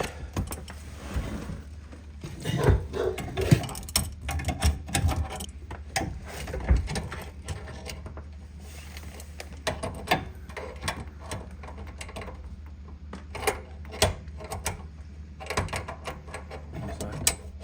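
Irregular metallic clicks and knocks of a spanner tightening a compression fitting's nut down onto its olive, over a low steady hum.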